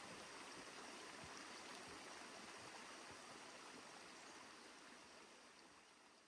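Faint, steady rush of a shallow creek running over flat bedrock, fading out near the end.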